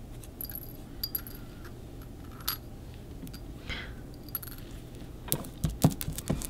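Small fossil shark teeth clicking and clinking lightly against each other as they are picked up and handled, with a cluster of louder clicks near the end.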